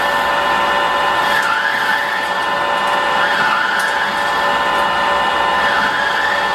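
Manual tool room lathe running steadily with a whir and several steady whining tones, as a carbide turning insert takes a roughing cut of about 5 to 6 mm depth on a bearing stub; a higher tone wavers up and down as the cut goes on.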